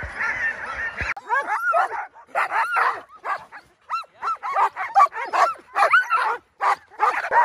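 Alaskan husky sled dogs yipping, whining and barking excitedly, a dense run of short high calls rising and falling in pitch. The calls follow a second of outdoor background noise that cuts off abruptly.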